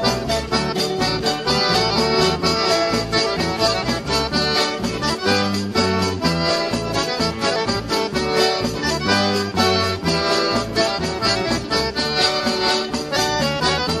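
Instrumental accordion (sanfona) dance music, with bass and a steady, even beat.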